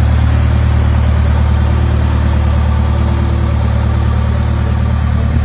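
Tandem road roller's diesel engine running close by: a loud, steady low hum.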